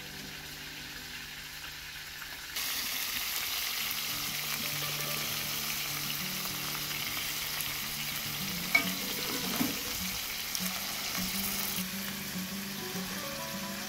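Chicken drumsticks sizzling as they fry in oil in a wide pan, louder about two and a half seconds in. A couple of sharp clicks come as metal tongs and a spatula knock the pan while turning the pieces.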